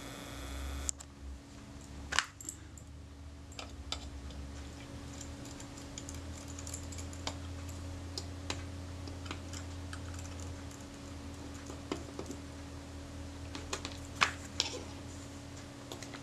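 Scattered small clicks and taps of a metal hand tool and fingers working on a Rolleiflex TLR camera body and its small metal parts, over a steady low hum.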